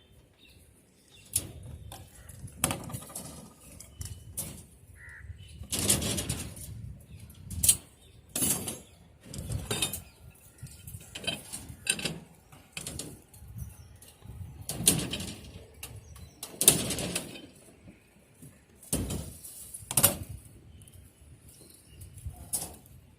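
A string of irregular knocks and rustling scrapes, a dozen or so spread through the stretch, from hands-on work with materials.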